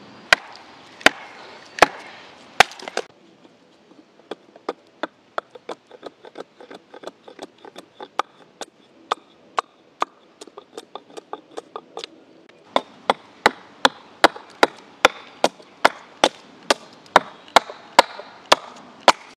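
Hatchet chopping and carving a log, a series of sharp wooden knocks. A few heavy blows come first, then lighter, quicker strokes, and near the end a steady run of about two and a half strokes a second.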